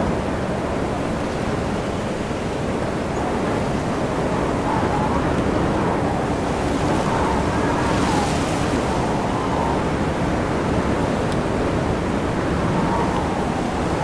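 Mountain wind blowing steadily: a low rushing with a faint wavering whistle, brightening into a hissing gust about eight seconds in.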